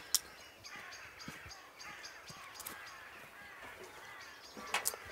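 Small birds chirping and twittering around an open yard. There is one sharp click just after the start, and a quick cluster of sharp clicks near the end as the metal mailbox at the gate is opened.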